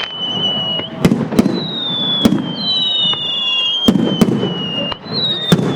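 Fireworks display with sharp bangs about six times, over long whistling tones that slide slowly downward, some overlapping one another.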